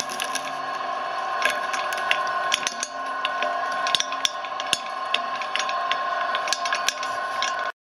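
FilaMaker shredder's electric drive whining steadily as its steel cutter discs crunch white candy, with irregular sharp cracks as pieces break. The sound cuts off suddenly near the end.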